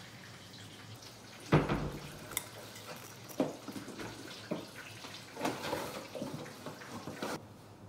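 Kitchen handling sounds: a thump about a second and a half in, then irregular knocks and short rustling clatters, stopping abruptly near the end.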